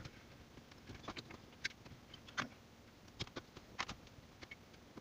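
Faint, irregular plastic clicks and taps of wiring-harness connectors being worked loose behind a car stereo head unit.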